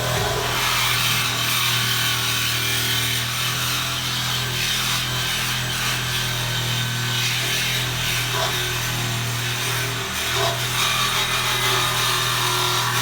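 Power saw cutting through the steel tubing of a car's roll cage, running steadily with a brief dip about ten seconds in.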